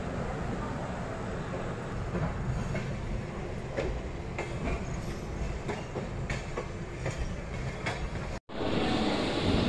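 Passenger train running, heard from inside a coach at the window: a steady rumble with irregular wheel clicks over rail joints. Near the end the sound cuts out for a moment and comes back as a louder steady noise.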